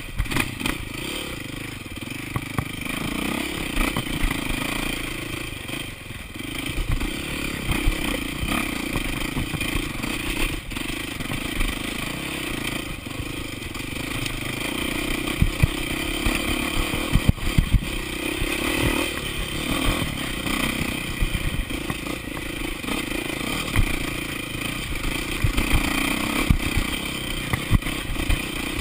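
Enduro motorcycle engine running and revving up and down while riding a rough dirt trail, with scattered knocks and rattles from the bike going over bumps, heard from a camera mounted on the bike.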